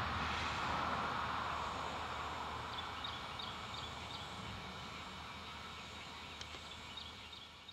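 A passing vehicle on the road fading steadily into the distance. Short high chirps repeat several times a second in the middle, with a few more near the end.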